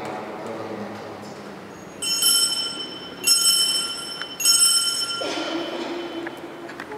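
Altar bells rung three times, a little over a second apart, each ring hanging on with several high clear tones.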